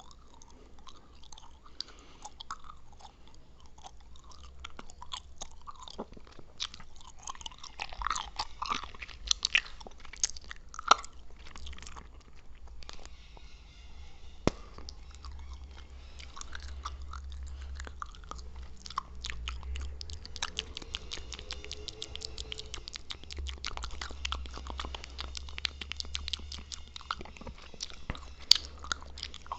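Chewing gum and mouth sounds: a run of short clicks that grows faster and denser in the second half.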